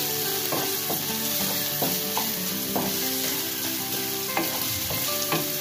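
Minced chicken sizzling in hot oil in a metal kadhai while a wooden spatula stirs it, scraping and tapping on the pan bottom every half second or so.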